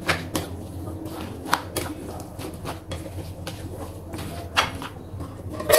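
Plastic spatula stirring a wet mix of mashed tofu, egg and cauliflower in a glass bowl: soft squelching with irregular small clicks and taps against the glass. A louder knock comes near the end.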